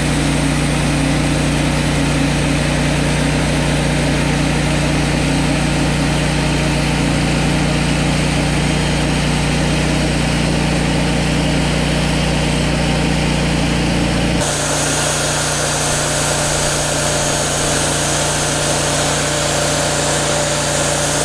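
Wood-Mizer LT40 band sawmill running steadily under load as its bandsaw blade cuts through a large pecan log, the engine's hum under the hiss of the cut. About two-thirds of the way through the sound changes abruptly, the low engine tones dropping back.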